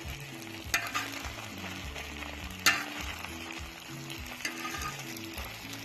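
Hash browns and green onions sizzling steadily on a plow-disc cooker as they are stirred, with two sharp clicks, about a second in and near the middle.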